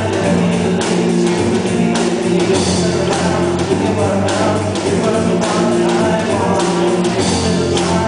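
Rock band playing live: held guitar and bass notes under drum and cymbal hits at a steady beat.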